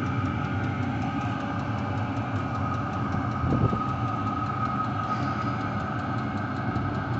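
Chinese diesel air heater running steadily as it warms up to operating temperature: a steady whirring hum with a thin whine, and a light regular ticking of its fuel pump, about three ticks a second.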